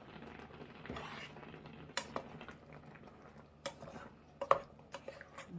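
Wooden spoon stirring rice cake and dumpling soup in a stainless steel electric pot, with a few light knocks and clinks of the utensil against the pot.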